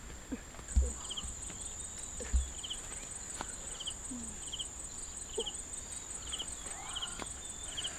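Insects (crickets or cicadas) calling: a steady high-pitched drone, joined about a second in by short pulsed chirps repeating about twice a second. Two dull low thumps come in the first few seconds.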